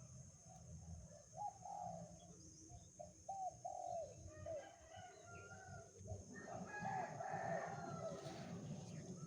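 Chickens calling: several bouts of short rising-and-falling calls, over a steady high insect drone.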